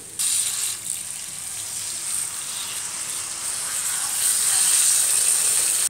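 Water poured from a jug into a hot wok of fried onion, potato and spice masala, hissing and sizzling as it hits the pan. The hiss grows louder toward the end and cuts off suddenly.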